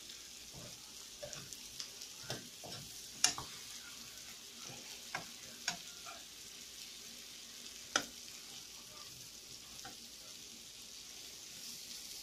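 Shrimp and sliced cucumbers sizzling in a frying pan, with a spoon knocking and scraping against the pan now and then as they are stirred; the sharpest knocks come about three seconds in and at about eight seconds.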